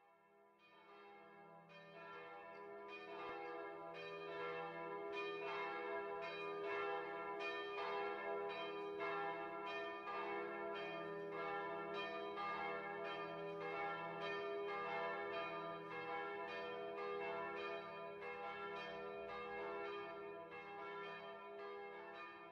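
Church bells ringing, a steady run of overlapping strokes that fades in over the first few seconds.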